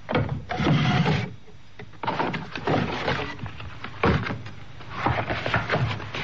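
Sound effect of paper notebooks being handled and their pages leafed through: rustling paper with light knocks, in three spells a second or two long.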